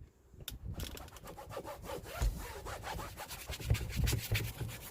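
Brush scrubbing a surface in rapid back-and-forth strokes, starting about half a second in and stopping near the end.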